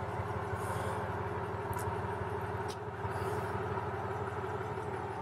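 Ford 140-horsepower six-cylinder diesel running steadily, heard through the steel hull from inside a cabin as an even hum. A couple of faint ticks sound over it.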